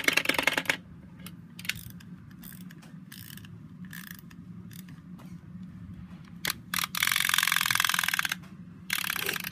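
Clockwork of a wind-up chattering-teeth toy: rapid ratchet-and-gear clicking in bursts. One dense run stops under a second in, short bursts follow, and a longer run of clicking comes about seven seconds in.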